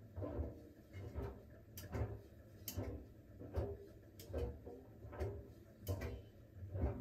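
Siemens WG56 iQ700 washing machine drum turning slowly during the smartFinish steam phase, the clothes tumbling and dropping with a soft thud a little under once a second, a few thuds carrying a sharp click.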